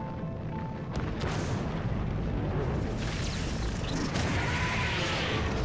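Sound-effect explosion of a particle accelerator in a TV drama mix: a sharp crack about a second in, then a building, rumbling blast with crackles. Held music notes play at the start and return at the very end.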